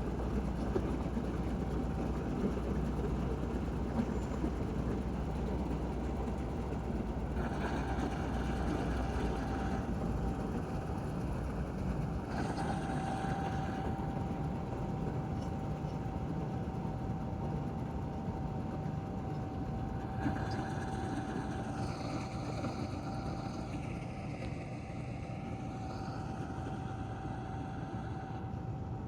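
Heavy farm machinery engine running steadily, with a constant thin whine over the low rumble; a higher hissing noise comes in and out a few times.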